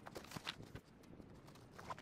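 Faint rustling and a few small scattered knocks of a fabric tent bag being packed and its straps handled.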